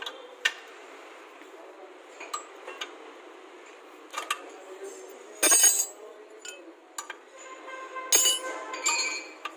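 Steel combination spanners clinking and scraping against a rusted nut and bolt on a vehicle's front suspension as they are fitted and worked. There are sharp single clinks throughout, and louder clanks about five and a half and eight seconds in, the second leaving a short metallic ring.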